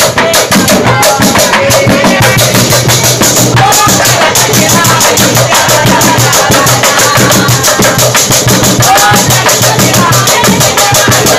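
A group of young men singing and shouting a chant together over a fast, steady beat of obrog drums and percussion, loud and without pause.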